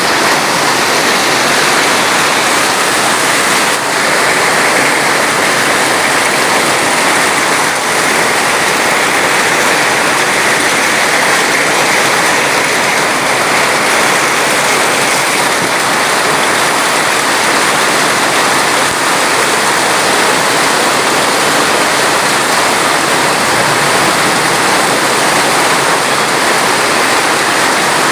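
Steady, dense rush of water, unchanging throughout, with no separate drops or splashes standing out.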